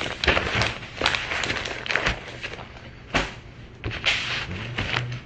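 Handling noise close to a phone's microphone: irregular rustling broken by several sharp knocks, as something is moved right up against the phone.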